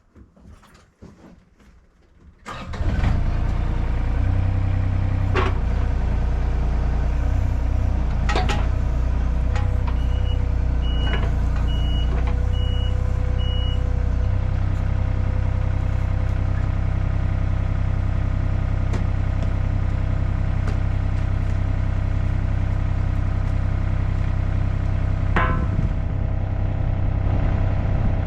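Craftsman riding lawn mower engine starting about two and a half seconds in, then running steadily, with four short high beeps about halfway through.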